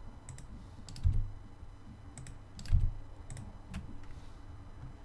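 Computer keyboard keys and mouse buttons clicking irregularly, about eight sharp clicks, with two louder dull knocks about a second in and just before three seconds.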